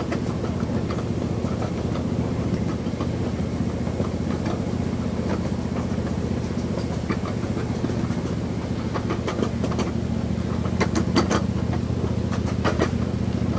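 Ride-on miniature train running steadily, its motor giving a low, even drone. Sharp clicks from the wheels and cars come in bunches in the last few seconds.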